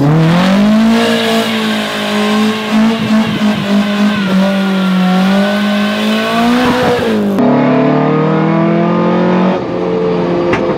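Toyota AE86 Trueno's swapped BEAMS 3S-GE four-cylinder engine revving hard and held high while the rear tyres spin in a burnout. About seven seconds in it switches to the engine running steadily under way, heard from inside the cabin, with a drop in revs near the end.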